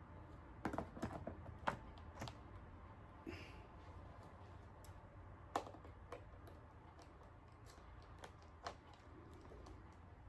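Faint, irregular clicks and light taps: a cluster of several in the first two seconds, then single ones now and then. They come from a screwdriver and the small parts of a MacBook being handled while working on thread-locked screws.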